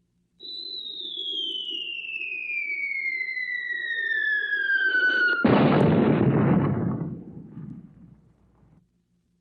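Whistling artillery shell falling: a steady whistle that glides down in pitch for about five seconds, cut off by a loud explosion that rumbles away over the next three seconds.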